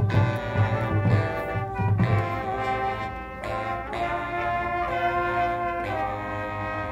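High school marching band playing: the brass holds loud chords that shift a few times, over heavy low drum strikes in the first two seconds.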